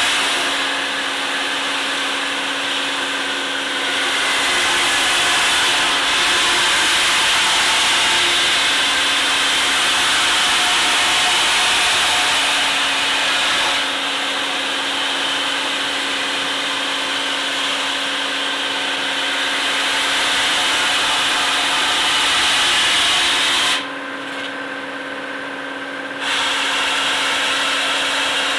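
Industrial sanding machine running with a steady motor hum, its abrasive rasping against a steel workpiece and swelling and easing as the piece is worked. The rasp drops away for about two seconds near the end, then comes back.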